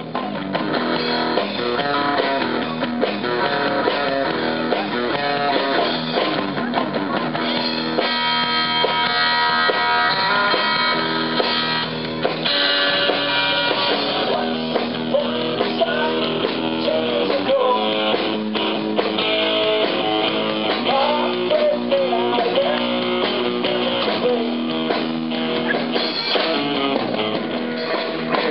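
Live rock band playing: electric guitar, bass guitar and drum kit together, picked up through a camcorder's built-in microphone with no mixing.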